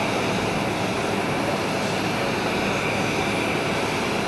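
Jet aircraft running on the airport apron: a steady rushing noise with a constant high whine.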